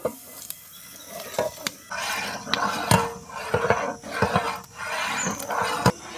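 A ladle stirring and scraping in a metal cooking pot, with irregular clinks and knocks.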